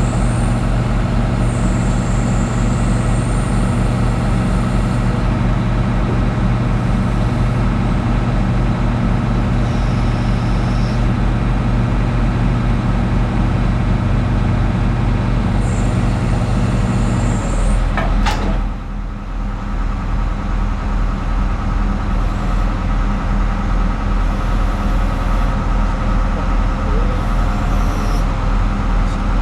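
Hitachi Zaxis 250 excavator's diesel engine running steadily while its hydraulics curl and move the bucket, with short high whines coming and going. About 18 s in the engine note changes after a sharp click.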